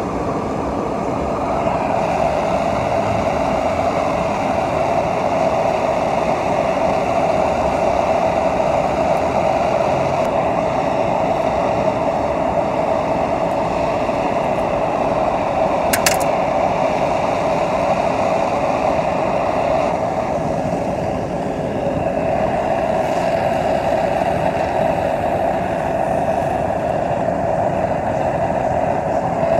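Small blower-fed metal-melting furnace running with a steady rushing noise while aluminum is poured, with a single sharp metal clink about halfway through.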